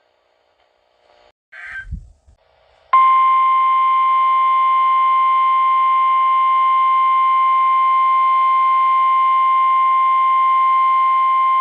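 Weather radio: a brief faint data burst and a low thump about two seconds in, then about three seconds in the NOAA Weather Radio 1050 Hz warning alarm tone starts. It is one steady, loud tone, held for about nine seconds, that cuts off just before the end.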